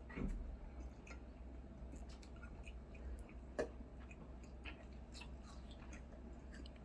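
Faint wet chewing and small mouth clicks of children eating jelly with full mouths, with a couple of slightly louder clicks about a third of a second in and about three and a half seconds in.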